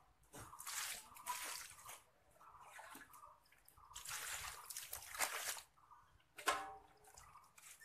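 Water scooped with a plastic mug from a drum and thrown onto a wet concrete floor, splashing in several separate pours.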